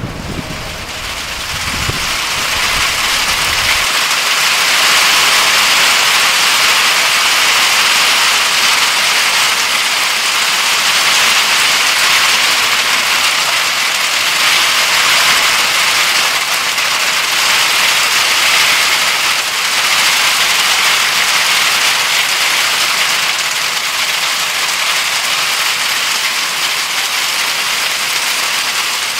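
Thunderstorm downpour: heavy rain pouring down steadily and densely, building over the first couple of seconds. A low rumble fades out within the first few seconds.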